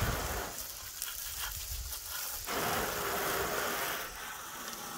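Water sprayed from a hose onto a pickup truck's fender and bed, a steady hiss of spray spattering on metal, louder for a second or two about halfway through.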